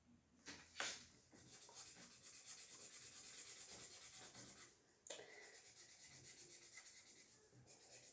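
Felt-tip pen colouring on paper: quick, faint back-and-forth scratching at about six strokes a second, with a short pause about five seconds in. Two sharp clicks within the first second, the loudest sounds here.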